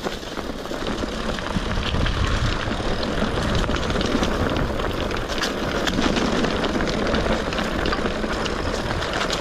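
Mountain bike rolling along a leaf-covered dirt trail: tyres crackling over the ground with a steady rattle of small knocks from the bike, under a constant low rumble of wind on the microphone.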